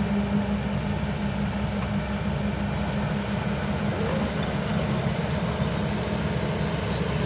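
Excavator's diesel engine running steadily with a low, even hum.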